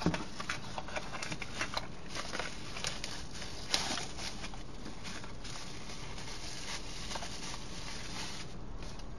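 Light clicks and taps of a small plastic camping lantern being handled, most of them in the first four seconds with one sharper click near the middle, then only a steady hiss.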